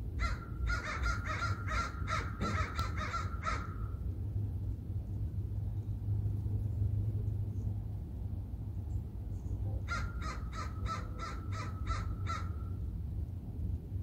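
A bird giving two quick series of short calls, about four a second, the first over the first few seconds and the second about ten seconds in, over a steady low background rumble.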